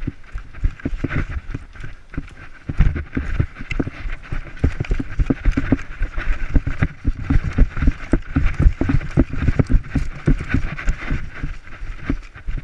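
Running footsteps: quick, heavy footfalls several times a second, with gear jostling, picking up a little after two seconds in and slowing near the end.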